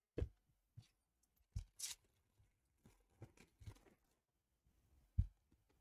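Hockey trading cards and a foil pack wrapper handled by gloved hands: a few soft knocks on the table and a short papery swish of a card or wrapper about two seconds in.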